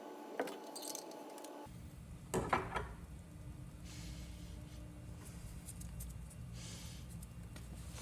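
A few light metal clinks and clatters from tools and small parts being handled while working on a small engine's carburetor. There is one click about half a second in and a louder cluster a little over two seconds in, over a steady low hum that starts near two seconds.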